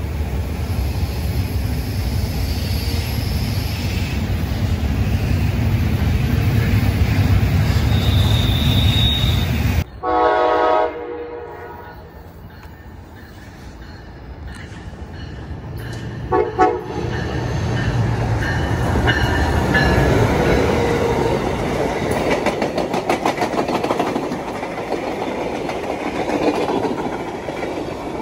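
Intermodal freight train passing close by, a steady heavy rumble of railcars. Then a different scene: a train horn sounds a blast of about a second, and a shorter one follows, as an Amtrak passenger train approaches and rushes past with wheels clicking rapidly over the rail joints.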